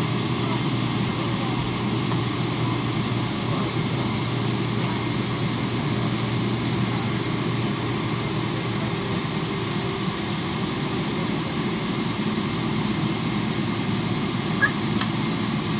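Boeing 777-300ER's GE90 jet engines running at taxi idle, heard inside the cabin as a steady, even hum. A single short click sounds near the end.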